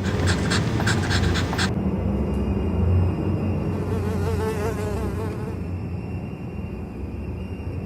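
Insect buzzing: a steady low drone that wavers in pitch around the middle, with a rapid run of clicks over the first second and a half.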